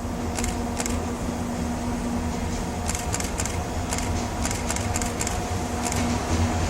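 Empty freight flat wagons rolling past, their wheels clicking over rail joints in small clusters of two or three, over a steady hum and low rumble.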